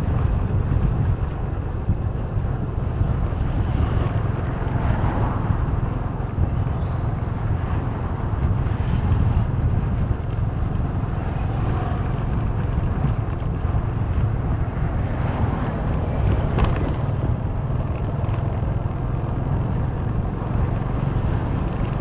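Wind buffeting the microphone over the steady rumble of a moving road vehicle.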